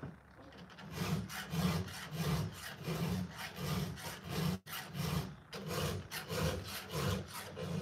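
Round file stroked across the cutters of a Stihl chainsaw chain during sharpening: repeated rasping strokes, about two a second. The file is one the sharpener feels is worn out and no longer cutting.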